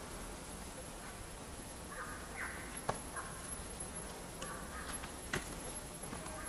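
A few short, harsh animal calls, starting about two seconds in, with two sharp clicks or taps, the second the louder, over a low outdoor background.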